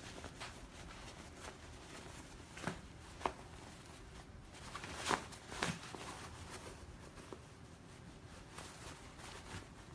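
Fabric rustling as a sewn pillow cover is turned right side out by hand, with a few louder brushes and taps about three and five seconds in.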